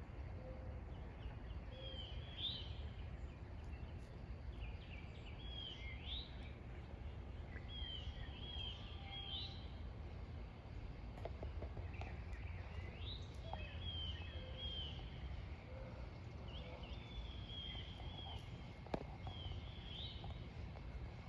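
Small birds chirping in short, repeated phrases every second or two over a steady low background rumble, with one sharp click about 19 seconds in.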